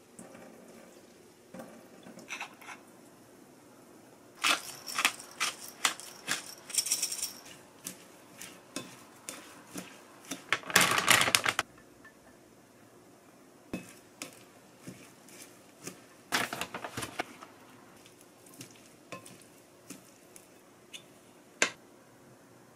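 Kitchen prep sounds: scattered clinks and taps of a spoon and chopsticks against a glass mixing bowl while shredded potato is mixed with frying powder, with a denser rattle of clinks about eleven seconds in.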